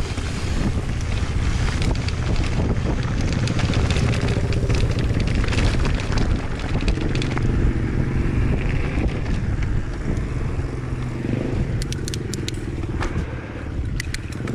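Mountain bike riding noise: wind rushing over the microphone with tyres and bike rattling and scraping over a dirt trail, and a quick run of sharp clicks near the end.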